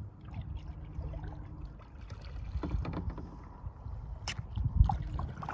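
Kayak paddling on a river: paddle blades dipping and splashing in the water, over a low rumble on the microphone, with a few sharper clicks, the loudest about five seconds in.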